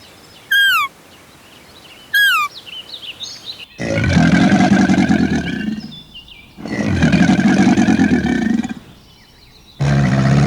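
A bird's short, falling whistled call twice, with some twittering. Then two long, loud, deep animal calls of about two seconds each, and a third beginning near the end.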